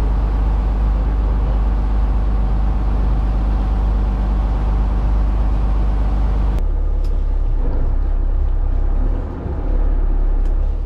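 Fishing charter boat's engine running under way, a loud steady drone. About two-thirds of the way through it changes abruptly to a deeper, duller rumble.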